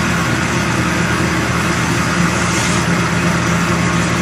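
Drum wood chipper running steadily: a continuous machine hum over a dense, even rushing noise.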